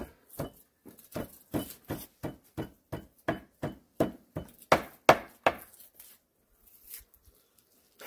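Kitchen knife chopping raw meat on a round wooden cutting board: a steady run of knocks, about three a second, that stops a little before six seconds in.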